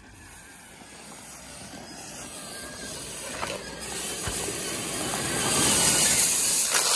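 Traxxas X-Maxx electric RC monster truck driving over a hard-packed dirt track, its hiss of motor and tyres growing steadily louder as it comes closer, with a couple of faint knocks partway through.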